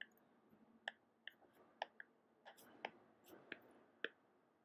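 Faint, irregular clicks of a stylus tapping on a tablet screen during handwriting, about ten over a few seconds.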